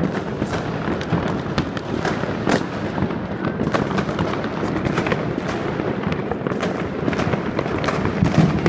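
New Year's fireworks and firecrackers going off all around: many bangs and crackling pops in rapid, irregular succession, with no let-up.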